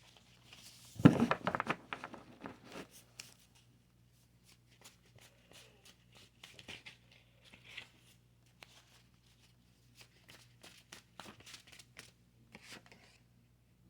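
Tarot cards being handled and shuffled: a loud flurry of card noise about a second in, then scattered light clicks and rustles.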